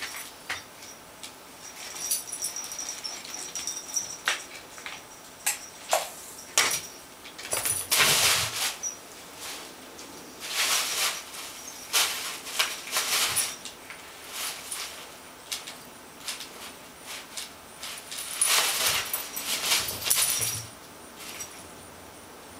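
A small jingle bell on a homemade cardboard toy jingling and rustling in repeated short bursts as the toy is dragged on fishing line and batted across carpet.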